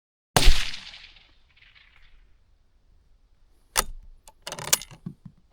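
A single suppressed .308 Winchester rifle shot about half a second in, its report fading over about a second. Some three seconds later come sharp metallic clicks and clatter.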